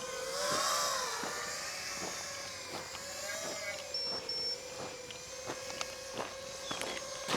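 FPV quadcopter motors whining steadily in flight, the pitch wavering gently as the throttle changes, with footsteps at a walking pace through grass.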